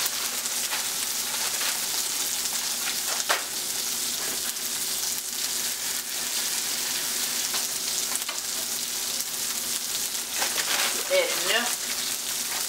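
Sliced sausage frying in a skillet: a steady crackling sizzle, with a single sharp click about three seconds in.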